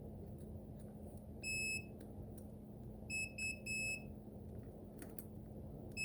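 Continuity tester beeping as its probes bridge the fuse-block contacts: one short high beep about a second and a half in, then three quick beeps a second and a half later, each beep a sign of an unbroken circuit. A steady faint hum runs underneath.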